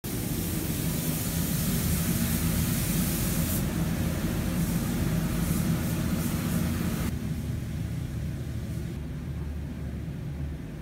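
Compressed-air paint spray guns hissing over a steady low machinery hum in a spray-painting booth. About seven seconds in, the hiss drops away and the low hum carries on alone.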